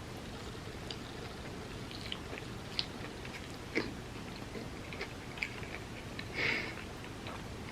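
A person chewing food close to the microphone: scattered soft wet mouth clicks and smacks, with a brief louder burst about six and a half seconds in.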